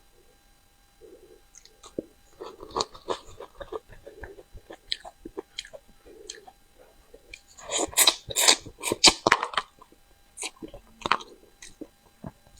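Close-up mouth sounds of someone eating crucian carp: irregular wet smacks, clicks and chewing that start about a second in, with a louder, denser run of crunchy chewing from about eight to ten seconds in.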